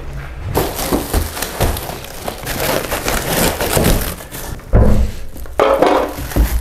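Plastic wrap crinkling and rustling as a bundle wrapped in black stretch film is dragged and handled. Two heavier thumps come near the end.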